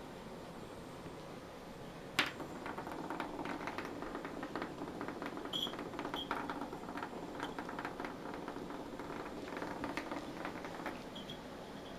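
A sharp knock about two seconds in, then a run of quick irregular taps and rustles, as a cat plays with a toy.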